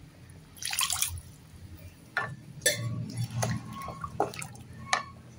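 Thick tamarind curry boiling in a pan, its bubbles bursting in irregular plops and pops, with a spatula stirring through it.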